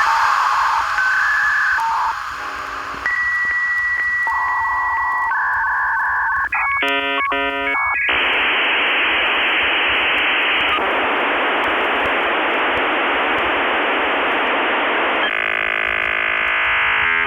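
Dial-up modem handshake: a run of short steady beeping tones, a long high tone, a brief warbling burst, then a steady loud hiss with a short stretch of buzzing tones near the end.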